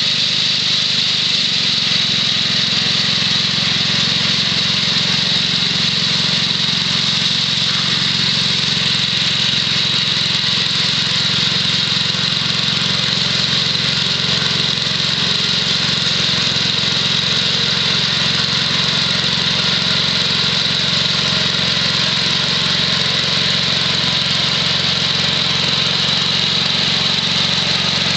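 The 6 HP Tecumseh H-60 single-cylinder engine of a 1967 Wheel Horse Lawn Ranger tractor running steadily, driving a 32-inch snowthrower through about three inches of snow.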